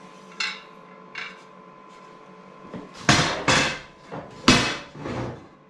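Two light taps, then four loud knocks and clunks close together in the second half, over a faint steady hum.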